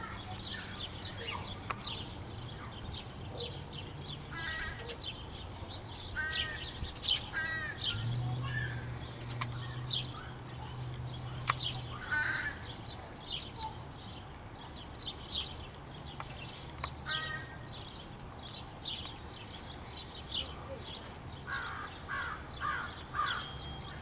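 Young crows cawing over and over in short, kazoo-like calls, some in quick pairs and a run of four near the end. Many short high chirps sound between the caws.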